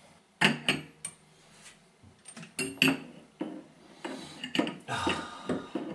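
Scattered light metallic clicks and scrapes as a chrome fitting is turned by hand onto a water heater's threaded pipe.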